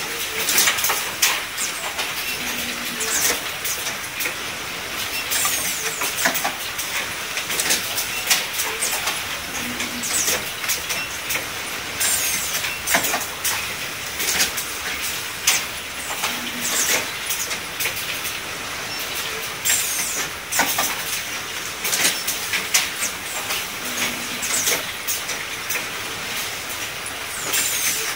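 Automatic garment bagging machine running: a steady hiss with frequent sharp clacks and clicks from its mechanism, and a short low tone recurring about every seven seconds.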